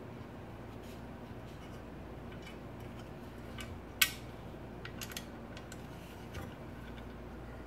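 Small clicks and taps of metal Stirling engine kit parts being handled and fitted together, a bracket against a base plate, with one sharper click about four seconds in.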